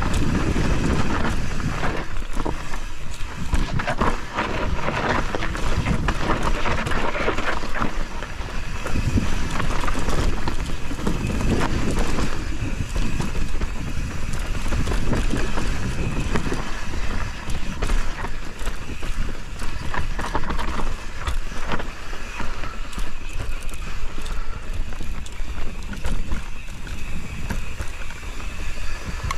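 Mountain bike descending a rough dirt and rock trail: tyres running over dirt and stones, the bike clicking and rattling over the bumps, with wind on the microphone.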